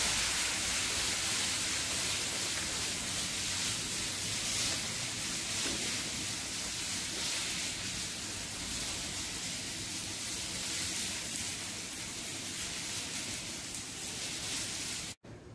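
Spaghetti and bacon fat sizzling steadily in a frying pan over a gas flame as it is stirred. The sound cuts off suddenly near the end.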